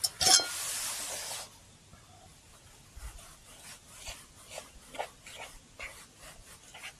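A click and a short hiss about a second long at the start, then light scraping and tapping of a spoon stirring in small camp cookware.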